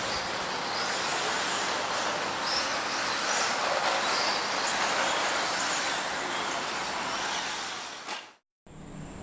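Onboard audio from a 1/8-scale RC car driving over a dirt track: a steady rushing noise of tyres, drivetrain and wind on the camera. It cuts off abruptly near the end.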